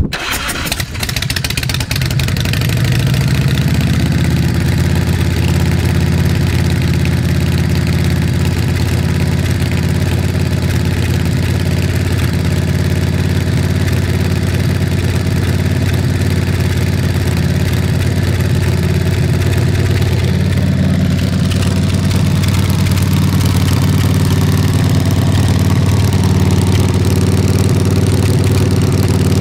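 Big Dog Ridgeback chopper's V-twin engine starting, then running at a loud, steady idle through its exhaust.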